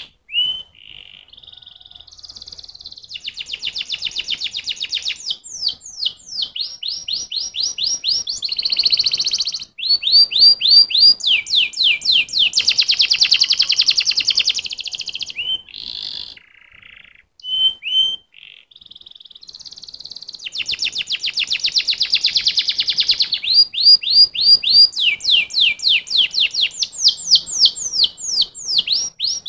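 Domestic canary singing a long, varied song: runs of quick, repeated falling whistled notes and fast trills, with a short sparser break about two-thirds of the way through.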